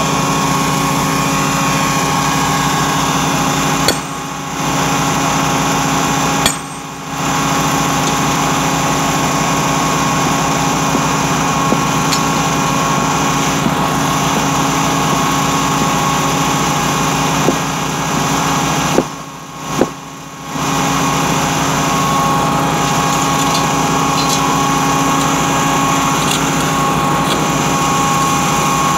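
Small engine running steadily at a constant speed, with a steady high whine over it; the sound dips briefly a few times.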